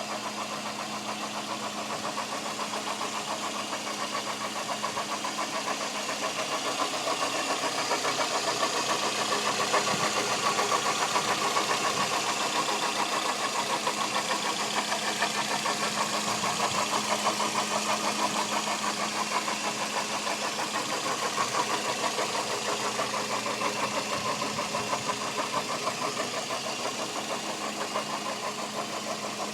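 Toyota Echo 1.3-litre VVT-i four-cylinder engine running at idle, with a rapid, even ticking through it and a steady hum. The ticking is the unexplained noise from the engine.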